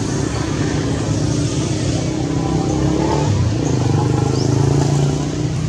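An engine running steadily with a low, throbbing hum, a little louder about four seconds in.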